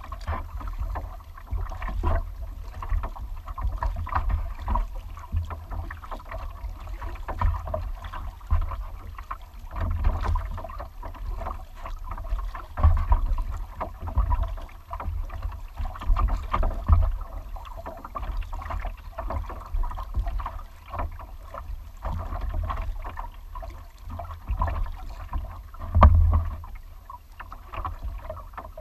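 Double-bladed kayak paddle strokes in the water, a splash and drip with each stroke in an uneven rhythm, one louder splash near the end, over a steady low rumble of wind on the microphone.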